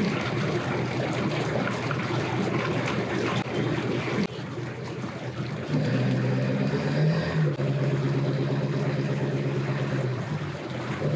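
A rough, noisy engine and water rumble for the first few seconds, then a motor running steadily with an even hum from about six seconds in, its pitch rising briefly once.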